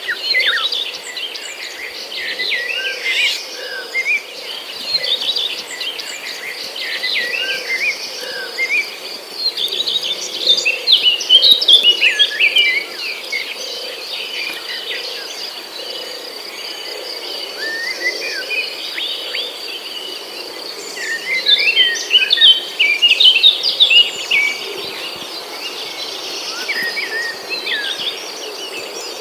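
Birds chirping and singing in quick bursts over a steady, high-pitched insect drone; the birdsong comes loudest in two spells, about a third of the way in and again past the two-thirds mark.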